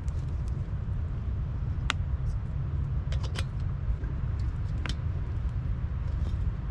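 Steady low rumble of wind on the microphone, with a few sharp cracks from a burning eucalyptus-wood fire through the middle.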